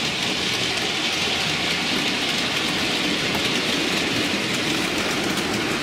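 OO gauge model train, a diesel locomotive hauling a long rake of TTA tank wagons, rolling steadily along the track. It makes a continuous whirr and rattle of wheels on rail, with faint ticks at the rail joints. It runs smoothly, with no sound of a derailment.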